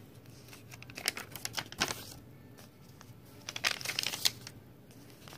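Paper pages of a handmade junk journal being turned and handled, rustling and flapping in a few short bursts, loudest about four seconds in.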